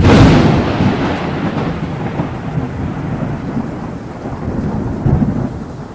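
Thunder sound effect: a loud crash that breaks suddenly, then a long rumble that swells again about five seconds in.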